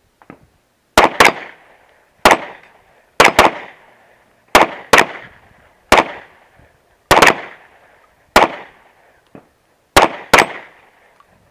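Semi-automatic pistol shots, about thirteen, many fired as quick pairs about a quarter to a third of a second apart, each followed by a short echo.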